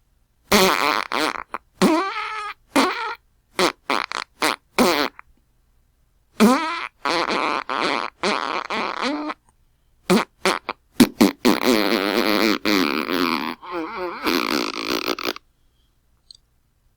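A run of fart sounds: quick short ones in the first five seconds, then longer rippling, wavering ones, the longest lasting about four seconds near the end, separated by short silences.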